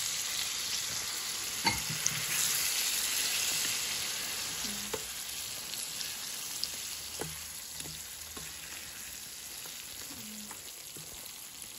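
Hot chili oil sizzling in a steel bowl of chili flakes, sesame seeds and garlic as it is stirred with a metal spoon. The sizzle slowly dies down, with a few clinks of the spoon against the bowl.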